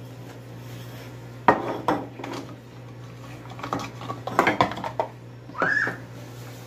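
Plastic containers and plates knocking and clattering in a kitchen sink as they are washed by hand, in a few separate bursts, with a short rising-and-falling squeal near the end.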